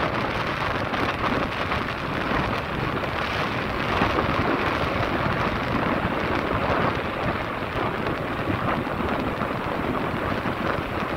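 Wind rushing and buffeting over the microphone of a moving motorcycle, a steady rumbling noise that swells a little now and then, with no engine note standing out.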